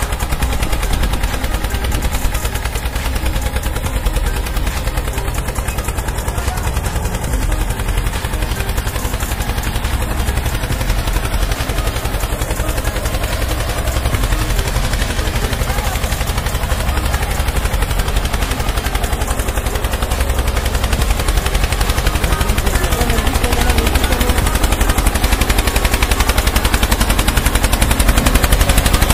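Small DC motor and plastic gearing of a homemade toy tractor running under load while towing, a continuous rapid rattle over a low hum, a little louder near the end.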